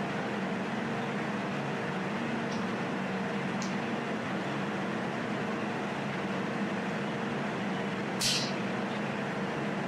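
A jewelry laser welder's cooling fan and water pump running with a steady hum and rush as the machine warms up after being switched on. There are a couple of faint ticks and a short sharp hiss about eight seconds in.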